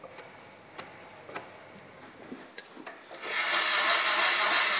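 Light, irregular metal ticks and clicks as a tap cuts threads in a small hole in a steel vise jaw, then about three seconds in a loud steady hiss that lasts about two seconds.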